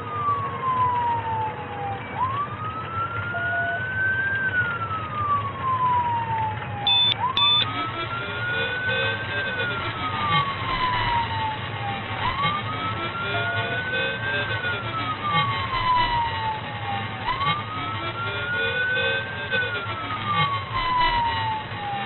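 Police car siren on a slow wail, rising and then falling about every five seconds, heard from inside the pursuing patrol car over its engine and road noise. From about seven seconds in, a second, fainter wailing siren overlaps it at a lower pitch.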